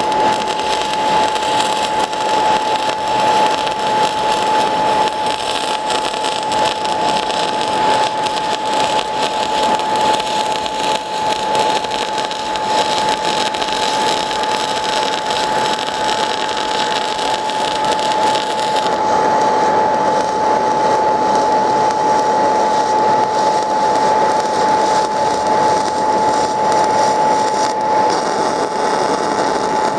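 MIG/MAG welding arc from a 500-amp semiautomatic welder, run at high current on thick steel, crackling and sizzling steadily as the bead is laid. A steady high tone runs under the crackle, and the hiss turns duller about two-thirds of the way through.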